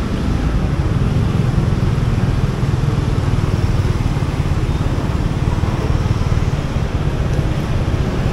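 Motorcycle engine running steadily while riding, over a haze of road and traffic noise.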